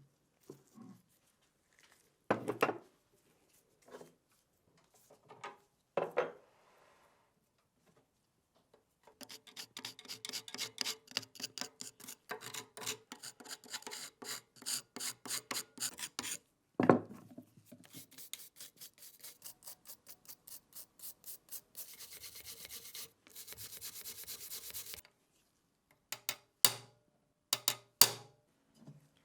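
Hand scraping on a rusty metal gun part in long runs of quick, even strokes, with scattered sharp knocks at the start, one loud knock about halfway through, and a few more near the end.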